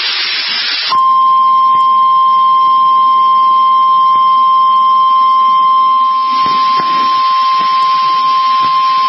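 Weather-radio hiss for about a second, then the NOAA Weather Radio warning alarm tone: one steady high 1050 Hz tone held unbroken. The tone signals that a new warning broadcast is about to follow.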